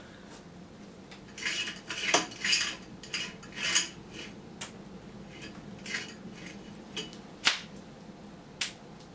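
Glass of a 42-inch LG Philips plasma panel giving a scatter of sharp irregular clicks and glassy clinks, a sign of the panel cracking under stress after the high-voltage run. The loudest snap comes about seven and a half seconds in.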